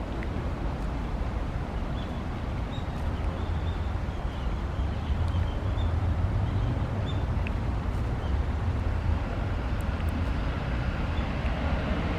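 Steady low outdoor rumble, swelling slightly after about five seconds, with faint short high-pitched chirps scattered through it.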